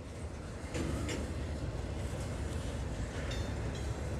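Double-stack container freight train rolling slowly in reverse through a road crossing: a steady low rumble of the wheels and cars on the rails, louder from about a second in.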